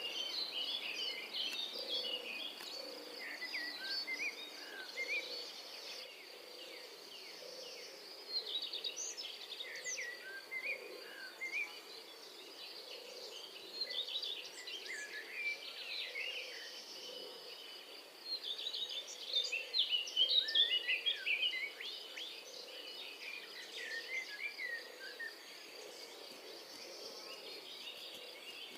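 Many birds chirping and calling over a steady high insect drone, with a faint low call repeating about once a second underneath.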